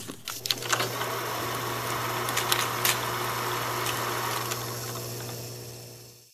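Film projector sound effect: a steady motor hum with scattered clicks and crackle, fading out near the end.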